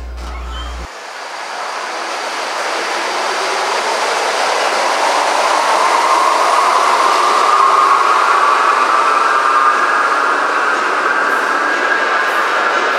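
Subway train running through a station, building in loudness over several seconds, with a whine that slowly rises in pitch over the steady noise of the cars.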